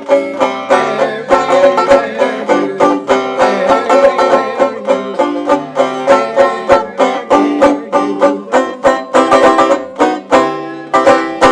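Banjo picking an instrumental tune in a quick run of plucked notes, ending on a last struck chord at the very end.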